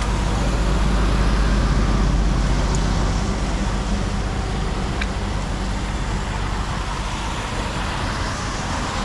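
A steady low rumble under an even rushing noise, with a couple of faint clicks about halfway through.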